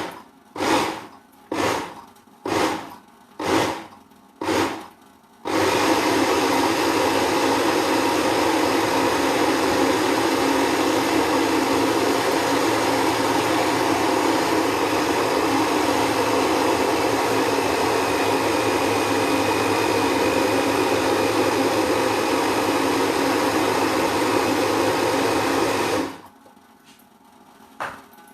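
Electric blender grinding turmeric root. It is pulsed in short bursts, about one every two-thirds of a second, for the first five seconds, then runs steadily for about twenty seconds and is switched off, followed by a single knock near the end.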